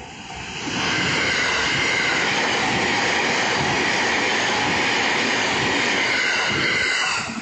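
JR East 209 series 2100 subseries electric commuter train passing over a level crossing: a loud, steady rush of wheel and rail noise that builds up over about a second and drops off suddenly near the end as the train clears.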